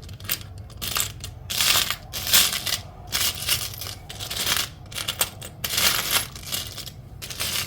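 Small metal charms clinking and rattling as a hand rummages through a pile of them, in irregular bouts about a second apart.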